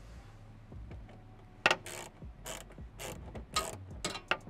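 Ratcheting socket wrench with a 9/32 socket, clicking in short strokes about twice a second as it backs out a wheel well liner bolt.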